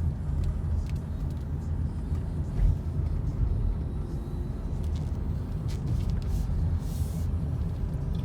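Honda Odyssey minivan being driven, heard from inside the cabin: a steady low road and engine rumble, with a few light clicks and a brief hiss about seven seconds in.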